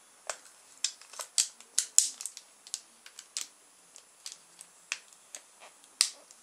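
A string of sharp, irregular clicks and snaps from hands handling small objects, about fifteen in all, the loudest about two seconds in and about six seconds in.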